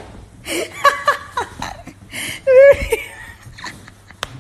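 A person laughing in a high voice, in two bursts of quick pulses, the second and louder one about halfway through.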